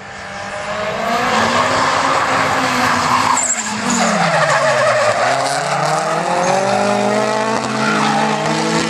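Nissan S15 drift car and a second car drifting together: engines revving hard at high rpm over continuous tyre screech. The engine note rises and falls as the drivers work the throttle, dipping about halfway through and climbing again. The sound builds over the first second as the cars come closer.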